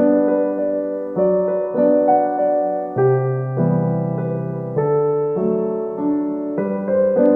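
Background music: soft piano or electric piano playing slow, sustained chords that change every second or so.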